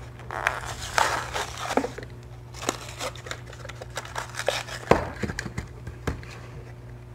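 Plastic blister pack crinkling and cardboard backing tearing as a die-cast toy car package is opened by hand, followed in the second half by a few sharp clicks and taps as the small metal car is freed and set down on the table.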